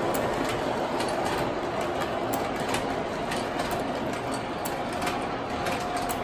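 MTH O-scale R62A subway model train set running: a steady running noise with a faint tone and frequent sharp clicks.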